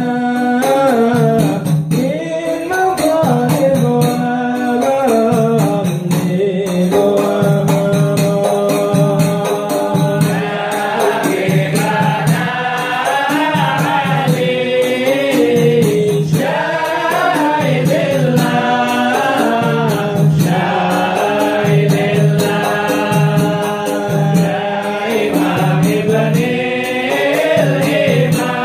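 A group of men singing an Arabic devotional qasidah (sholawat) together, with hand frame drums (rebana/hadrah) beating a steady rhythm underneath.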